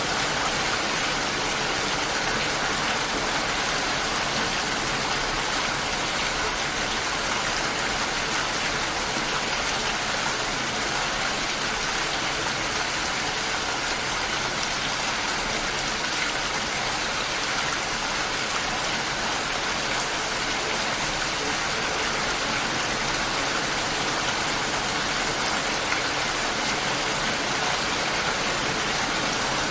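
Steady, even rain hiss of light rain falling, with no thunder or music.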